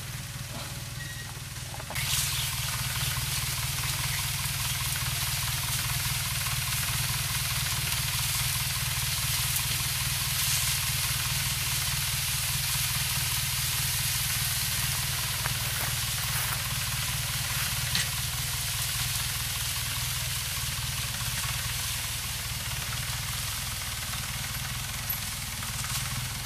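Small farm tractor's engine running steadily, with a hiss over it; it gets much louder about two seconds in.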